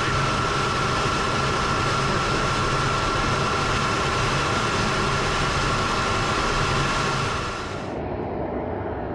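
Steady cockpit noise of a KC-135 on the ground with its engines running: a low hum under a constant high whine and hiss. About eight seconds in the sound changes abruptly, the hiss dropping away and the level falling.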